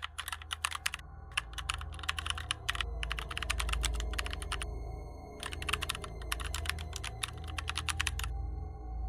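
Rapid computer-keyboard typing clicks in four bursts, the last ending about eight seconds in, over a low steady hum and faint high steady tones.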